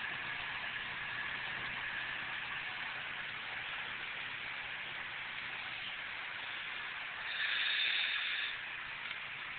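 ATV driving through a flooded creek: a steady rush of churned water and spray, with a faint engine hum underneath. A louder surge of spray comes briefly near the end.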